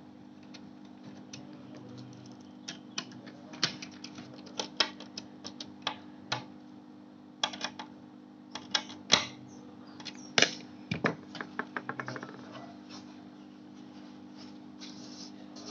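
Irregular sharp clicks and taps of hands working on a small computer's plastic and metal parts, with a quick run of clicks about eleven seconds in, over a steady low hum.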